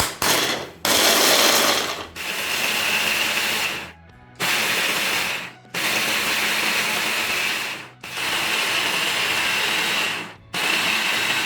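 Electric blender grinding lemon peels fine, run in pulses of one to two seconds with short breaks between, about seven pulses, with a steady whine as the motor spins up in the later ones.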